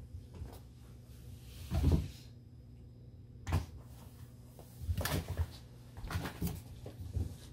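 Scattered knocks and thuds: one heavier thud about two seconds in, a sharp knock a little later, then clusters of lighter knocks near the end.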